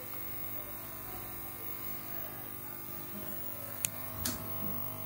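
Steady buzzing hum with many overtones from a TV speaker at almost minimal volume: interference noise carried on the DSO2512 oscilloscope's AV video output, a fault of the scope. Two short clicks near the end.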